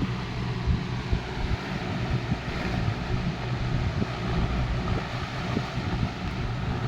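Antique 16-inch Robbins & Myers table fan running: a steady low motor hum under the rush of air from the blades.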